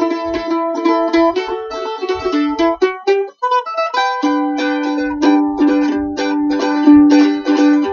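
Mandolin playing a fast instrumental intro of rapidly repeated picked notes, with a brief break a little over three seconds in.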